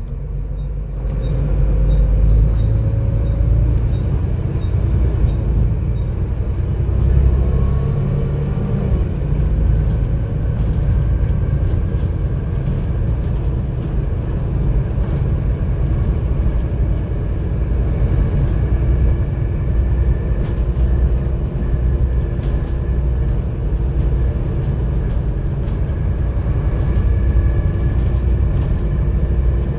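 Volvo B7TL double-decker bus under way, heard from inside on the upper deck: its six-cylinder diesel engine and ZF Ecomat automatic gearbox running over a heavy low rumble, with engine pitch rising and shifting in the first ten seconds, then holding steady. The bus is known for a loud engine cooling fan, whose whine belongs in this drive noise.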